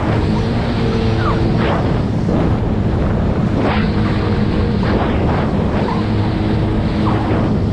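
Jet ski engine running steadily, with water splashing and wind buffeting the microphone.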